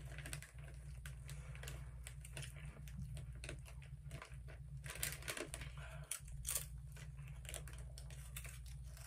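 Doritos bag crinkling as a hand reaches in for chips, and tortilla chips crunching as they are chewed, in scattered faint clicks and crackles that bunch up about five and six and a half seconds in.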